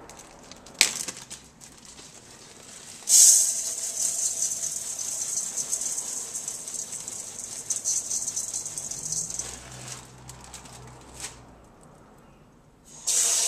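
Dry rice poured from a plastic zip-top bag into a stainless steel colander, the grains rattling on the metal for about six seconds. A click about a second in, and near the end the tap comes on, water running into the colander.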